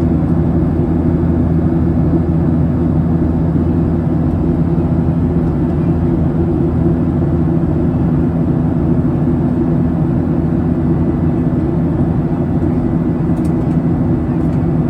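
Boeing 737-800 cabin noise during the climb: a steady, loud drone from the CFM56-7B turbofans over the hiss of airflow, heard from a seat beside the engine.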